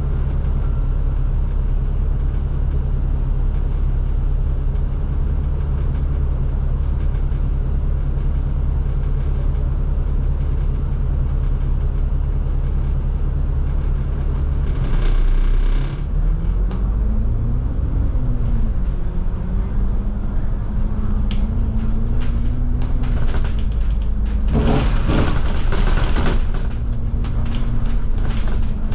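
Inside a moving double-decker bus: the diesel engine drones steadily, then about halfway its note drops and begins rising and falling as the bus changes speed. Brief bursts of rattling noise come near the end.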